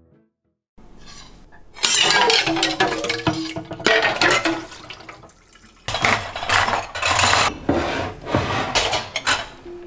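After a moment of silence, dishes and cookware clatter in a stainless steel kitchen sink. Then ceramic bowls clink as they are stacked onto a metal shelf rack in a cabinet.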